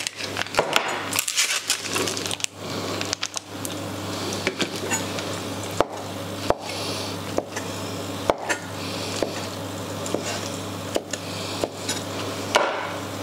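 Knife cutting mozzarella on a wooden chopping board: irregular sharp knocks of the blade against the board, over a steady low hum.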